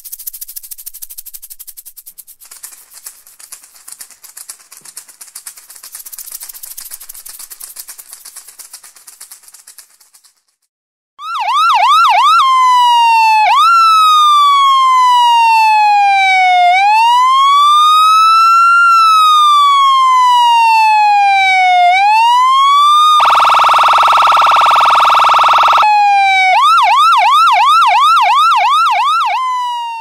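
A shaker rattles with a fast, high hiss for about ten seconds. After a brief gap, an ambulance siren starts much louder: a fast yelp, then a slow wail rising and falling, a steady horn blare for about three seconds, and the fast yelp again.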